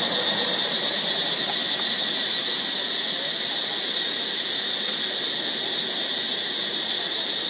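A steady, high-pitched insect chorus: one unbroken shrill drone held at the same pitch throughout.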